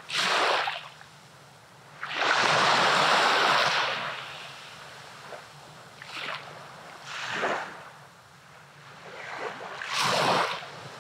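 Small waves washing up on a sandy beach in a series of rushing swells, each rising and fading. The longest and loudest lasts about two seconds, and shorter washes come before and after it.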